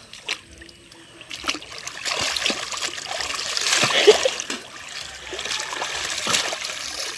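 River water splashing and trickling as a person wades through shallow water and scoops it over her face to rinse off soap. The splashing starts about a second in and is loudest around the middle.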